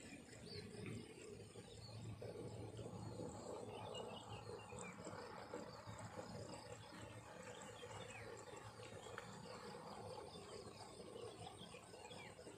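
Faint outdoor field ambience of insects chirping, with scattered short high chirps.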